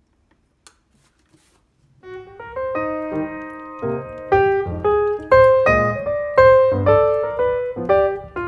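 Near silence with a few faint ticks, then background piano music comes in about two seconds in and carries on: a melody of struck notes over bass notes.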